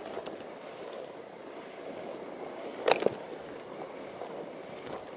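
Tall dry grass rustling and swishing against legs and clothing as a person walks through it, with a sharp double knock about three seconds in.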